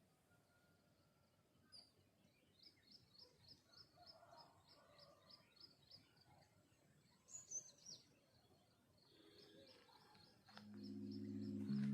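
Faint birdsong: a bird repeating a short high chirp about three times a second, with a couple of louder downward-sliding calls midway. Music fades in near the end.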